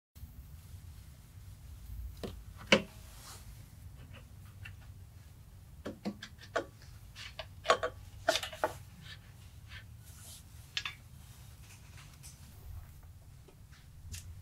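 Scattered clicks and knocks of a Mud Buddy transmission's metal parts being handled and seated onto the motor by hand, with one sharper knock about three seconds in and a run of clicks a few seconds later, over a low steady hum.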